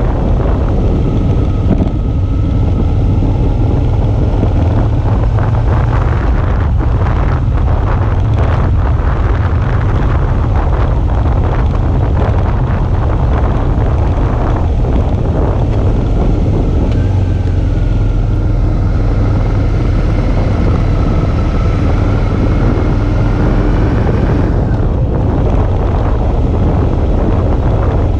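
Suzuki V-Strom 650's V-twin engine running under way, its pitch slowly rising and falling with the throttle, half buried under loud wind buffeting on the GoPro's microphone.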